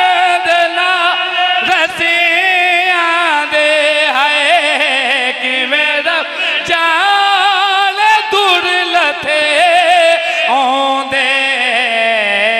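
A zakir's sung mourning lament: one voice chanting long, wavering melismatic phrases that glide up and down in pitch without a break, the masaib recitation that leads a Shia majlis into matam.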